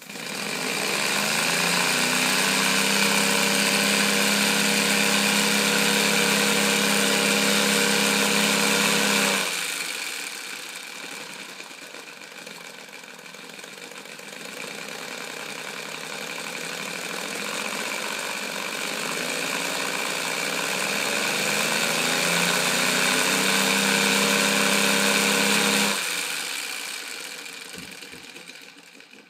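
3D-printed three-cylinder radial compressed-air engine with a flywheel, running on about 40 PSI of air: a rapid air-exhaust clatter and hiss that rises in pitch as it spins up, then runs loud and steady. About a third of the way in it drops to a quieter hiss, builds up again, and cuts off near the end as the air supply stops.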